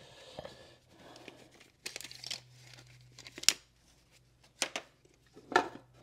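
A tape measure being handled in a work-gloved hand: faint rustling of the glove and a few sharp clicks and rattles of the case and blade, as a rough height is measured off the floor.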